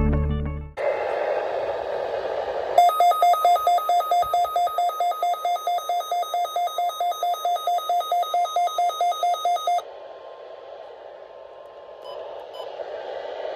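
Weather radio alert alarm: a rapid, loud beeping of two pitches together, about four beeps a second for about seven seconds, over radio static, marking the start of a severe weather alert. Just after the start the music stops and static hiss takes over; after the beeping ends, quieter static with a faint steady tone.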